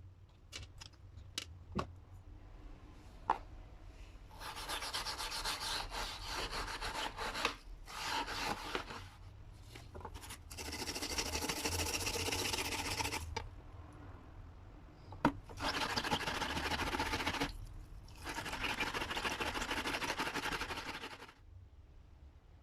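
Rapid rubbing strokes of an abrasive worked on the knife, in five spells of a few seconds each with short pauses between, after a few light clicks in the first seconds.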